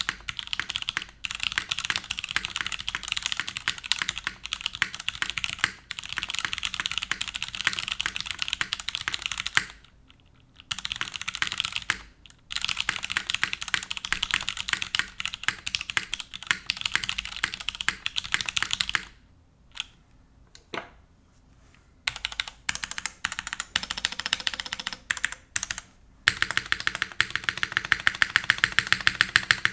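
Mechanical keyboard typing on a Merisi Ottantaquattro fitted with factory-lubed Cherry MX2A Brown tactile switches in a stainless steel plate, top-mounted, with GMK keycaps. Fast continuous keystrokes with a few brief pauses and one longer pause of about three seconds past the middle, ending in a fast, even run of louder strokes.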